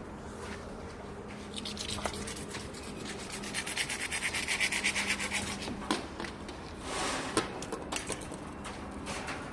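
Rapid, even rasping strokes of a hand tool working a surface, building up and running for about four seconds, then a sharp knock and a few separate scrapes.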